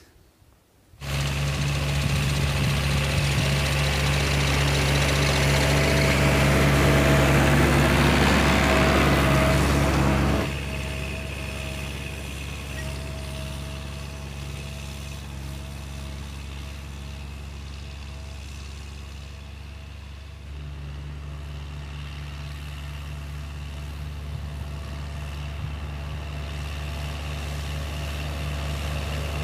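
Farm tractor's diesel engine running steadily under load, pulling a disc harrow, a constant droning hum. It starts about a second in, is loudest for the first ten seconds, then drops to a quieter, more distant level and grows louder again near the end as the tractor comes closer.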